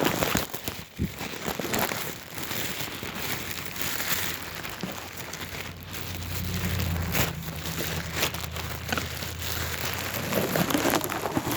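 Plastic packaging crinkling and rustling as a roll of bubble wrap is unpacked by hand, with a dense run of small crackles throughout and a low hum about six to eight seconds in.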